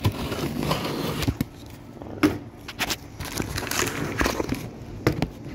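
A box cutter slitting the packing tape along a cardboard box. Then the cardboard is handled and the flaps pulled open, with several sharp crackles and snaps.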